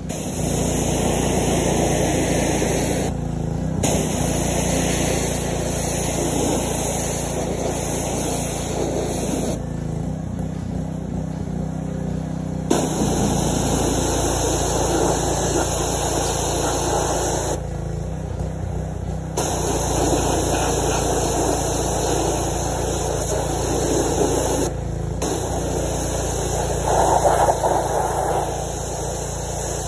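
Gas pressure washer running: its small engine drones steadily while the water spray hisses. The spray cuts out briefly about four times as the trigger is released, and the engine keeps running through each gap.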